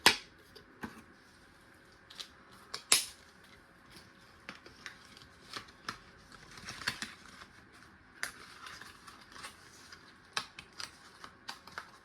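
Irregular clicks, taps and knocks of metal hand tools being handled and set down, with the sharpest knock about three seconds in.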